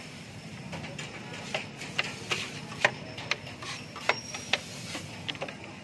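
Metal spatulas clacking and scraping on a flat-top griddle while cooked minced beef is chopped and turned. The clacks are sharp and irregular, a couple a second, over a steady low background noise.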